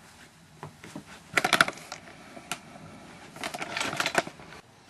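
Two short bursts of rapid clicking and clattering, about a second and a half in and again near four seconds, with a single click between them: small hard objects being handled.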